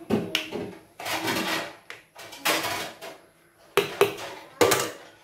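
Silicone spatula stirring squid pieces in lemon juice and baking soda in a ceramic bowl: a series of short scraping strokes and light knocks with brief pauses between.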